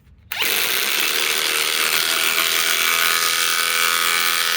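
RIDGID R872081 subcompact impact wrench on its highest speed, hammering steadily as it drives a 4-inch lag screw into wood. It starts suddenly about a third of a second in and keeps running.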